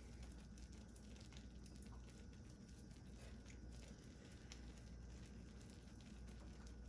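Near silence: room tone with a faint steady low hum and a few faint scattered ticks.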